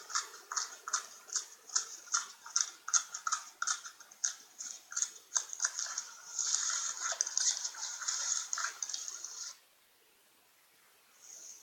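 Slime being squeezed and worked by hand, giving a run of short, wet squelching clicks a few times a second that merge into a denser squish, then stop abruptly near the end.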